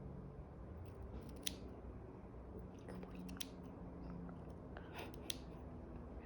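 Scissors snipping the hair on a dog's paw: a handful of sharp snips, spaced one to two seconds apart.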